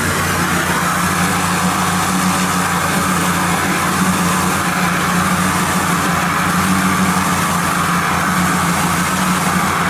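Pressure washer running steadily: its engine hums evenly under the hiss of the high-pressure water jet, with no change in pitch or level.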